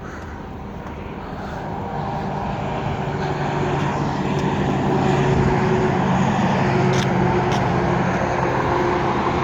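Vehicle engine drone with a steady hum, growing louder over the first five seconds, then holding steady.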